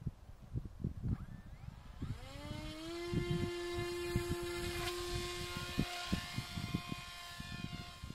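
Radio-controlled foam model airplane's motor and propeller. About two seconds in it spools up with a rising whine as it is throttled for the hand launch, then holds a steady high whine that grows fainter near the end as the plane flies away. Wind buffets the microphone throughout with low thumps.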